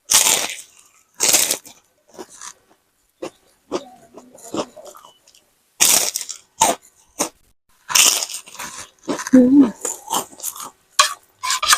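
Close-up eating sounds: several sharp crunchy bites, each followed by quieter chewing.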